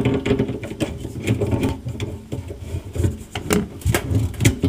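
Plastic drain-line nut being unscrewed from a garbage disposal's threaded outlet by hand: rubbing and creaking of plastic and pipe handling, with a few sharp clicks in the second half.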